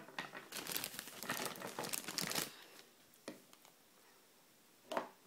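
Crinkling, rustling handling noise for about two and a half seconds, then quiet apart from a couple of light taps.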